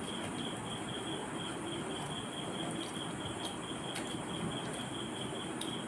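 Steady background hiss with a high, evenly pulsing chirp, and a few soft clicks from hands mixing rice on plates.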